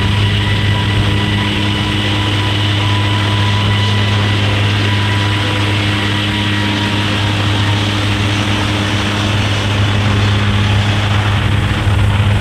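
Airplane engines running during take-off: a loud, steady rumble with a strong low hum and a few steady higher tones.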